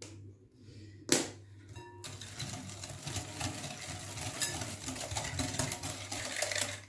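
Wire whisk beating egg yolks and sugar in a glass bowl: a fast, continuous rattle of metal wires clicking against the glass, starting about two seconds in. A single sharp knock comes just before it.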